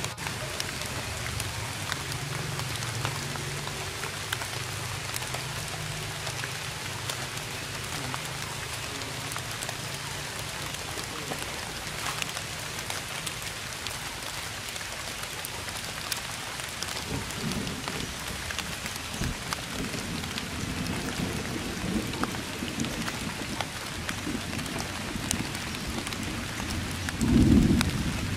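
Steady rain falling: an even hiss with scattered ticks of individual drops. In the second half low rumbles come in, the loudest one near the end.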